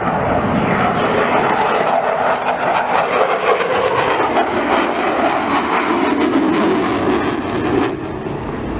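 Loud, steady jet noise with a crackling edge from a Eurofighter Typhoon's twin turbofan engines as it flies past, easing slightly near the end.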